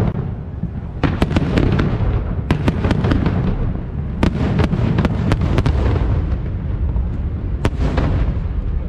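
Aerial fireworks shells bursting: a quick series of sharp bangs over a steady low rumble, the bangs coming thick from about a second in.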